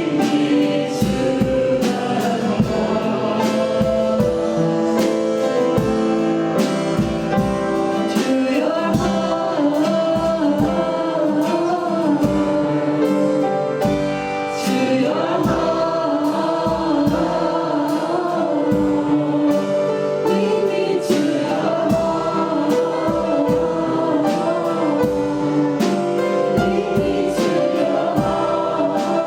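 Live gospel worship music: a group of voices singing a song together over a band with drums.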